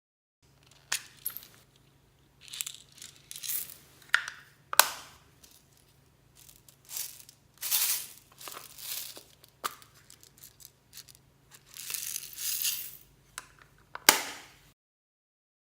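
Clear slime mixed with beads and floam being squished and stretched by hand, giving irregular crackles, squelches and clicks of the beads, with sharp snaps about five seconds in and near the end.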